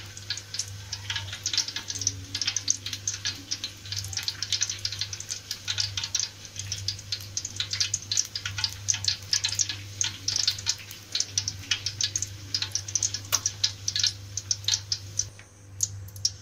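Cooking oil heating in a kadai on the stove, crackling and sizzling with many small sharp pops, over a low steady hum. The crackling thins out near the end.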